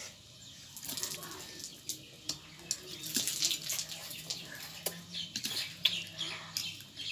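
Children slurping and chewing noodles, with forks and spoons clicking and scraping on their plates now and then.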